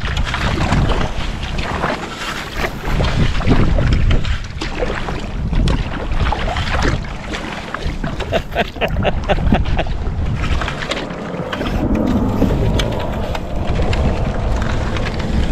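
Stiff marsh grass rustling and scraping along a sea kayak's hull and deck as the boat is paddled through the reeds, a dense irregular crackle with a low wind rumble on the microphone underneath.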